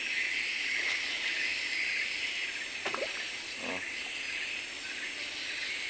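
A steady, high-pitched insect chorus buzzes without a break. Two brief pitched sounds come about three seconds in.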